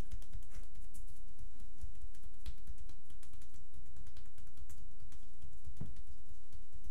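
Percussive massage (tapotement) on a bare upper back: hands held together strike the skin and muscle in a fast, steady stream of light slaps and thuds, many strikes a second.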